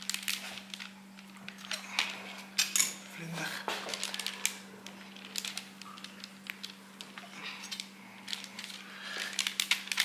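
Baking paper rustling and crinkling under flat hands pressing it down onto cooling dalgona candy discs, with scattered light clicks and taps.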